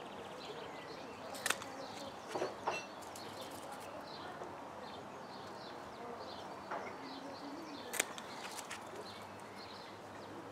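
Faint outdoor ambience of birds chirping, many short repeated calls, with a few light clicks.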